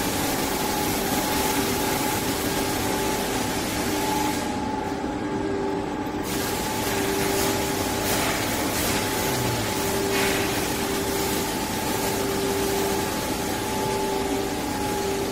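Officina Meccanica hot melt lamination machine running: a steady mechanical hum and hiss with constant whining tones from its drives and rollers. The high hiss drops away for about two seconds around five seconds in.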